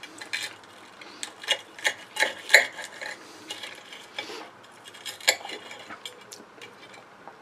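Knife and fork cutting through a breaded, fried chicken drumstick on a plate: the crust crunching, with sharp clicks and scrapes of the metal cutlery on the plate. The loudest clicks come about a second to two and a half seconds in and once more about five seconds in.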